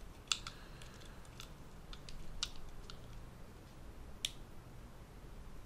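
Small, light metallic clicks of a hex key turning and seating a screw in a SIG P229 pistol frame, a few scattered clicks with the sharpest about four seconds in.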